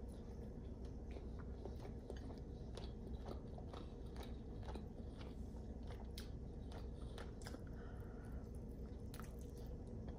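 A person eating with chopsticks from a ceramic bowl: soft chewing and biting, with many small clicks and taps of the chopsticks against the bowl scattered throughout.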